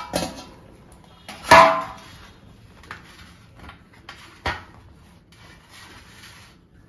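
A sharp knock with a short ring about one and a half seconds in, then a few light taps, one sharper click and soft rustling as a banana leaf is laid flat and pressed down by hand on a stone counter.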